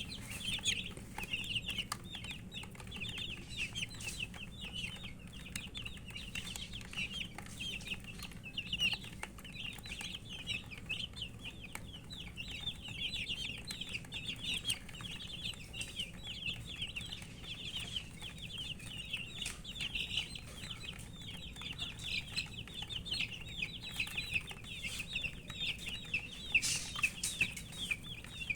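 A group of baby chicks peeping without pause, many short, high, downward-slurred chirps overlapping. The uploader puts the calling down to thirst for drinking water.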